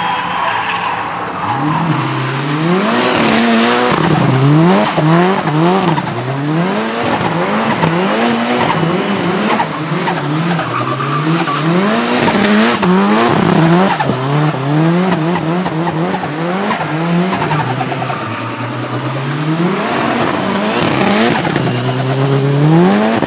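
Nissan 200SX drift car's turbocharged four-cylinder engine revving up and dropping back over and over, roughly once a second, with tyres squealing as the car drifts.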